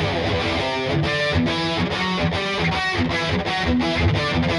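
Squier California Fat Strat electric guitar played with a distorted tone: a riff of short, separately picked notes and chords.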